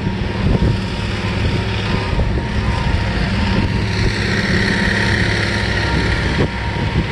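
A vehicle engine running steadily at an even pitch, with a rushing hiss that swells and fades partway through.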